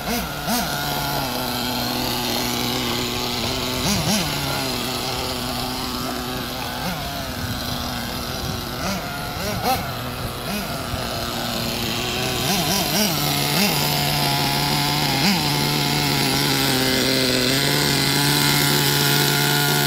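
Small nitro engine of a VRX-2 RC buggy running, with a few short revs up and down on light throttle, then holding a steady idle near the end; the engine is being broken in.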